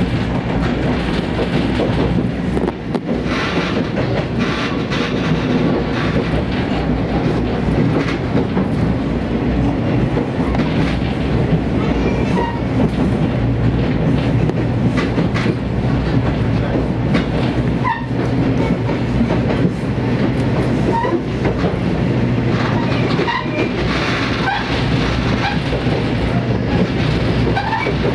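Diesel train running steadily on the rails, a continuous engine and running hum with wheels clicking now and then over rail joints.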